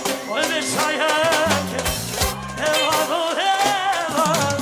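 Upbeat band music: a melody line with a strong, wavering vibrato over a repeating bass and drum beat.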